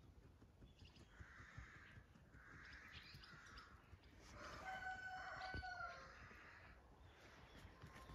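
A rooster crowing once, faint: one drawn-out call about halfway through, held on a steady pitch for about a second and a half.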